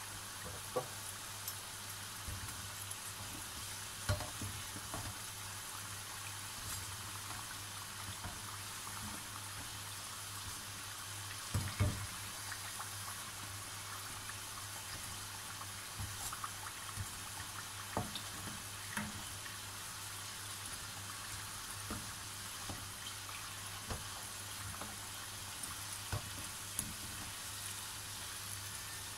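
Aloo samosas deep-frying in oil over medium-low heat: a steady sizzle, with scattered light clicks and knocks of the perforated steel skimmer against the pan as they are turned, the loudest about 12 seconds in.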